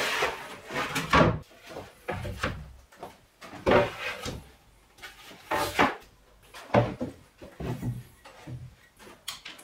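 Irregular wooden knocks and scrapes of chipboard panels being laid down on a workbench, then of 8-inch woofers being set on a chipboard table.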